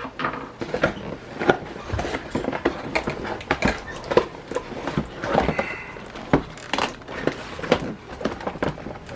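Cardboard and plastic toy packaging being handled, with irregular clicks, rustles and scrapes as the blaster's ties are worked loose from the box.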